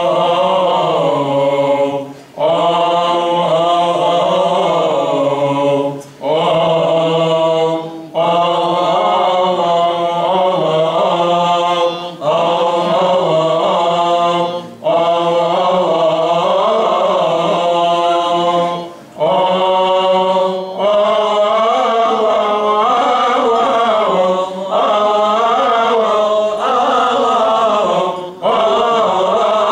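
Coptic Orthodox liturgical chant: long, ornamented sung phrases that wind up and down in pitch, broken by brief breaths every few seconds, over a steady lower held note.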